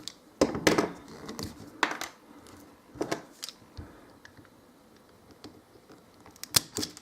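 Automatic wire stripper being squeezed and released on a VVG 3×1.5 power cable: sharp mechanical clicks and snaps of its jaws and spring. They come in several clusters with quiet gaps between them.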